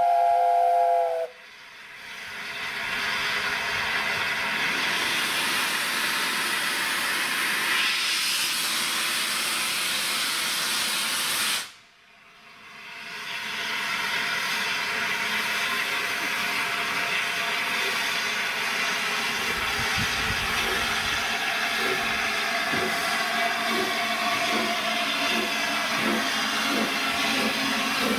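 Steam locomotive's chime whistle sounding a chord for about a second, then a loud, steady hiss of escaping steam that drops out suddenly twice. From about twenty seconds in, a beat that gets quicker runs under the hiss.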